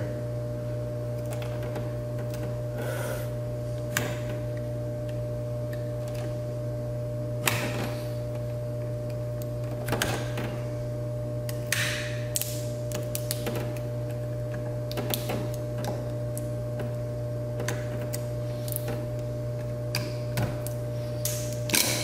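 Intermittent scrapes, clicks and crinkles of the outer sheathing being cut and peeled off heavy copper electrical cable at a breaker panel, over a steady hum.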